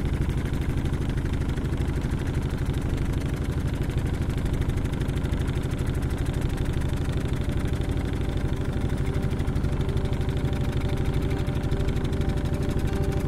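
A motorboat's engine running steadily at an even pace, with a fast, regular firing pulse, heard from on board the boat.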